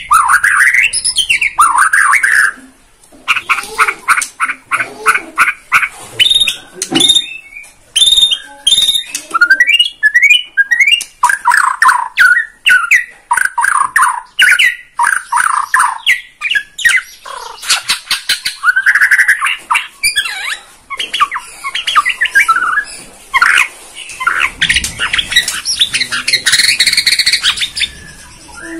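White-rumped shama (Borneo murai batu) singing continuously: a long, varied song of loud sweeping whistles, fast runs of sharp chattering notes and harsh squawks, delivered as a showcase of its full repertoire.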